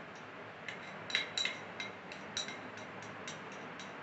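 Glass-on-glass tapping: small clinks, about three a second and unevenly spaced, each with a short bright ring, as sample grains are tapped from a glass container with a glass rod into the mouth of a glass separatory funnel.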